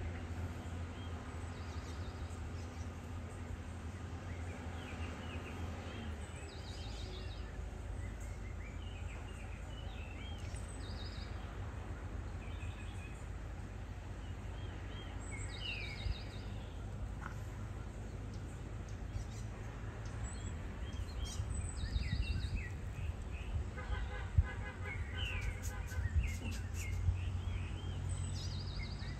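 Distant heavy construction machinery's diesel engines humming steadily, the hum dropping away about six seconds in and leaving a low rumble. Birds chirp and whistle over it throughout, with a run of quick repeated calls near the end.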